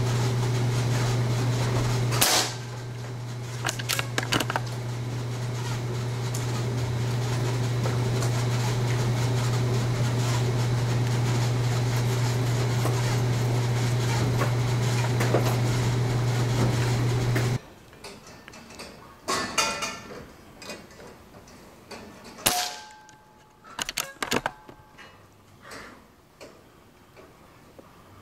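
Two sharp shots from a .22 Benjamin Marauder Woods Walker precharged pneumatic air pistol, one about two seconds in and one about twenty-two seconds in, with a few lighter clicks between. A steady low machine hum runs under the first shot and cuts off suddenly about seventeen seconds in.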